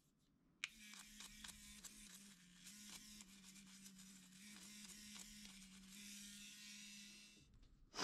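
Small electric rotary tool working wood: it starts just under a second in and runs for about seven seconds with a steady hum over a scratchy hiss, then stops. A brief loud noise follows right at the end.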